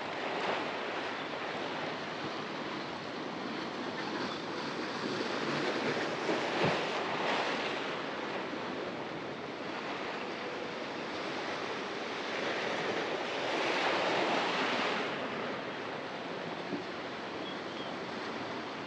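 Ocean surf washing against a rock jetty, with some wind. The wash rises into louder swells about six seconds in and again around fourteen seconds in.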